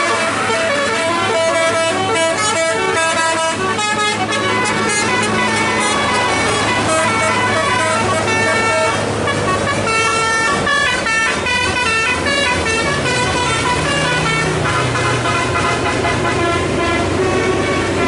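Bus 'telolet' musical air horns playing a fast melody of short notes that step up and down in pitch, over the low hum of a bus engine.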